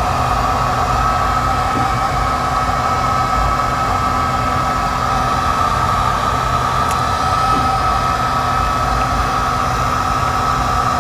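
Algolaser DIY kit diode laser engraver running an engraving job: a steady motor whine and hum as the laser head moves back and forth over the workpiece.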